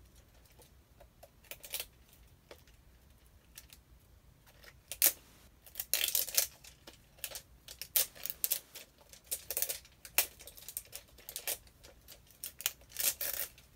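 Toy-capsule wrapping crinkling and hard plastic clicking as the last layer of wrap is peeled off and the capsule handled: irregular crackles and clicks, sparse at first and busier from about five seconds in.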